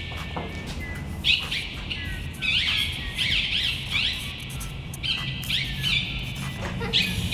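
Small birds chirping in repeated quick runs of short sweeping notes, over a low steady rumble.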